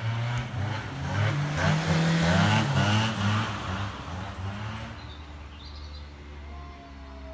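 Car engine and road noise as a vehicle passes close by, picked up on a phone microphone; louder in the first few seconds, then fading away.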